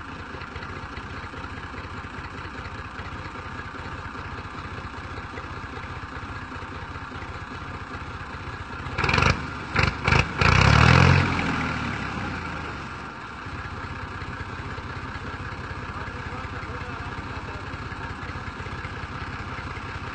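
Massey Ferguson tractor's diesel engine running steadily, hitched to a heavily loaded sugarcane trolley. About nine seconds in come a few short loud bursts and then a louder surge, which dies back down to the steady running by about thirteen seconds.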